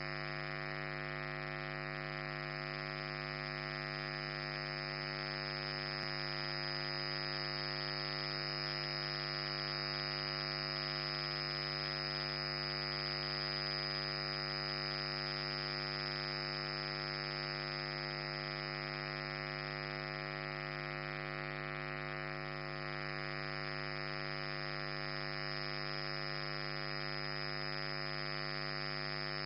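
Vertical wind tunnel's fans running at steady power, a constant buzzy droning hum that does not change.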